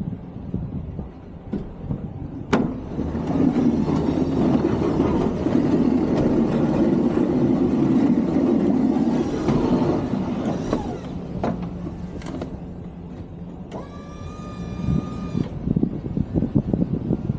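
Snow plow truck working, with engine and plow noise swelling for several seconds and then easing. A sharp click comes early, and a short electric whine near the end.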